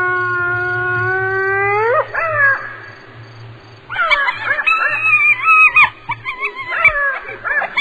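A canine howling: one long, steady howl that rises at its end about two seconds in, then after a short pause a run of higher, wavering howls and yelps.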